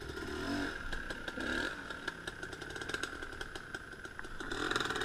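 Dirt bike engine revving in two short blips, then running steadily, as the bike works its way over a fallen log; small clicks and rattles run through it.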